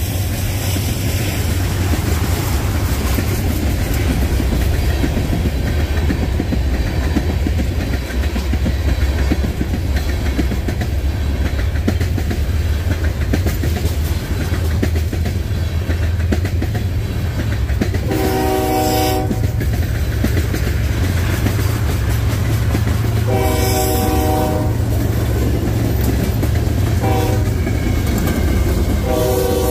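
Canadian Pacific freight train rolling past close by: a steady heavy rumble with wheels clicking over the rail joints as the freight cars go by. From about two-thirds of the way in, the locomotive horn sounds the grade-crossing signal: two long blasts, a short one, then a final long blast starting near the end.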